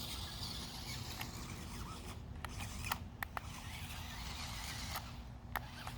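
Small toy RC stunt car's electric motors whirring as its wheels churn through tall grass, with a few sharp clicks along the way; the long grass is holding the car back.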